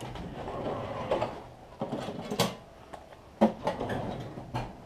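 Handling noise of small objects being moved about: rustling with a few sharp clicks and knocks, the loudest about three and a half seconds in.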